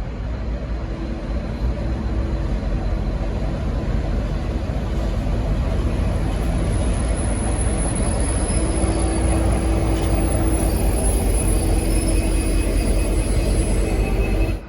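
V/Line N class diesel-hauled passenger train running past at close range: a loud, steady rumble of engine and wheels on rail that builds slowly, with a thin high whine in the second half, cutting off abruptly near the end.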